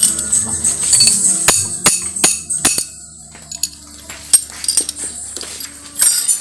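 Metal hand tools and small engine parts clinking and rattling as they are handled, with a run of sharp clinks in the first three seconds and a burst near the end.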